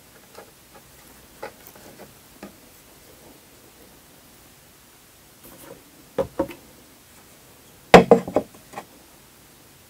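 Edible jelly cups being handled and tapped close to the microphone: scattered light taps, two sharper knocks about six seconds in, then a louder quick cluster of knocks about eight seconds in.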